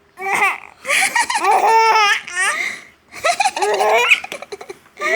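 A young child laughing hard and high-pitched, in two long bouts with a short break about three seconds in.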